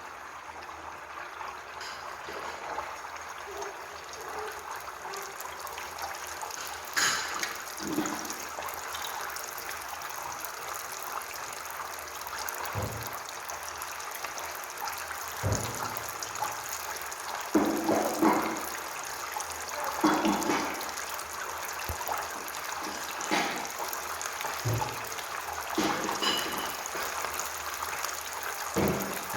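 Briouats frying in hot oil, a steady sizzling hiss, with occasional short knocks and clinks scattered through it.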